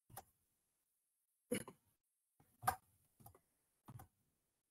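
About five faint, scattered clicks from a computer keyboard and mouse, with near silence between them.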